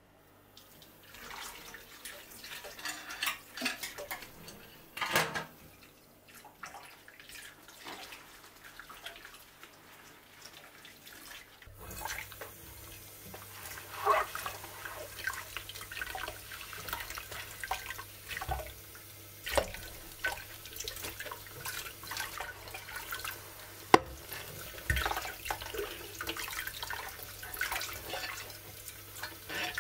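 Dishes being washed by hand in a stainless steel sink: tap water running and splashing, with a sponge scrubbing and scattered clinks and knocks of plates and cups. The running water gets heavier about twelve seconds in.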